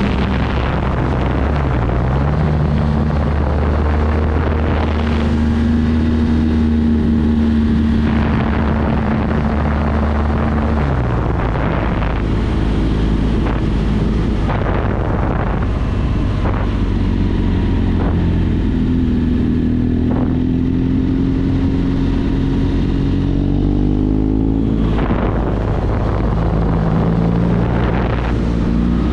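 Motorcycle engine running on the move, its note dropping and climbing several times with throttle and gear changes, under steady wind rush and gusts on the microphone.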